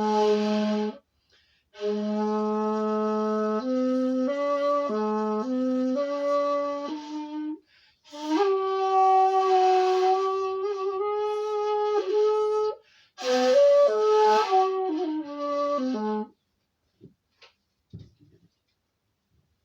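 Bamboo flute playing a slow melody in breathy phrases separated by short breath pauses, with one long held note in the middle. The playing stops about three-quarters of the way through, leaving only a few faint clicks.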